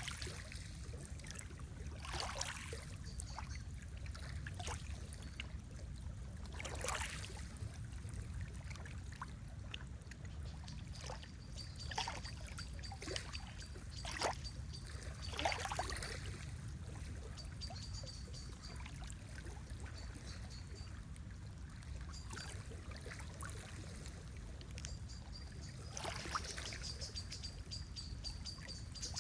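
Lake water lapping and splashing in small irregular waves over a steady low rumble. A faint, high, thin trill comes and goes from about ten seconds in.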